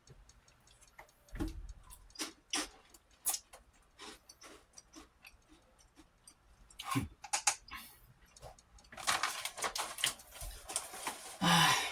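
Scattered light clicks and ticks at an irregular pace, with a denser crackly stretch about nine seconds in and a short louder sound just before the end.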